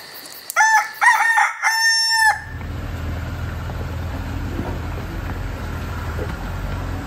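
A rooster crowing: one cock-a-doodle-doo in about three syllables, the last held longest. It cuts off a little over two seconds in and gives way to a steady low rumble.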